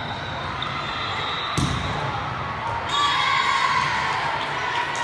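A volleyball rally in a gym hall: one sharp smack of the ball about a second and a half in, then girls shouting and cheering over the steady crowd noise.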